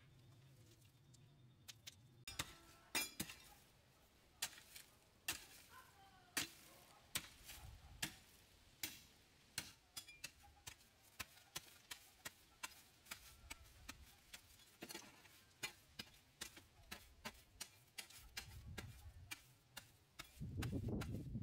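An irregular series of sharp knocks or taps, roughly two a second, starting about two seconds in, with a louder low rumble for about a second near the end.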